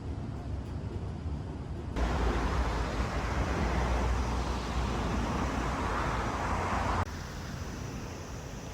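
Steady outdoor road-traffic noise, a rumble with hiss, that gets louder abruptly about two seconds in and drops back just as suddenly about seven seconds in.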